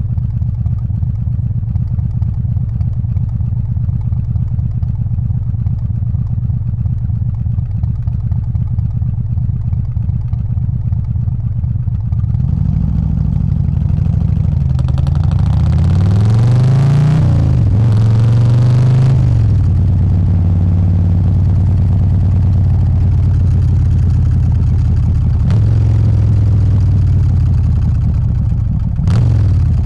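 Harley-Davidson Softail's 124 cubic inch S&S Evo V-twin running steadily at low revs, then accelerating from about twelve seconds in, its pitch rising through a gear change before settling back to a steady cruise. A short blip of the throttle comes near the end.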